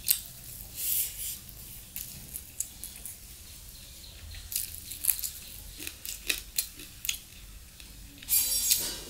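Close-up eating sounds of rice and chicken curry eaten by hand: wet chewing and lip smacks as a string of short sharp clicks, with fingers mixing rice and curry in a steel bowl near the end.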